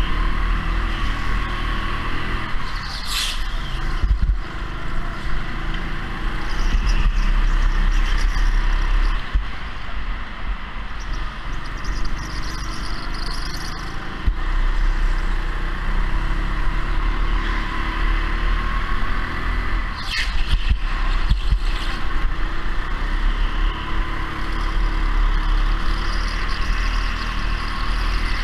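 Go-kart running at speed around a track, with a steady motor-and-road din under a heavy low rumble, and brief sharper noises about 3 and 20 seconds in.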